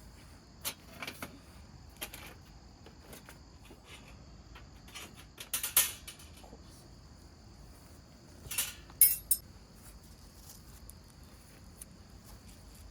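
Scattered light clinks and clatter of small hard objects being handled, like utensils or cookware, with louder clusters about six and nine seconds in, over a faint steady high hiss.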